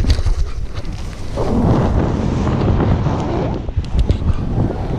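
Airflow buffeting the camera's microphone as a tandem paraglider lifts off after the launch run: a loud, low wind rumble that swells about a second and a half in and eases again near the end.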